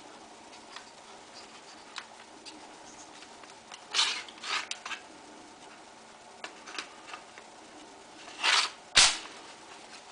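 Parts of a toy BB pistol clicking and clacking as it is handled and taken apart: scattered light clicks, a quick cluster of clacks about four seconds in, and two louder clacks near the end, the second with a dull knock.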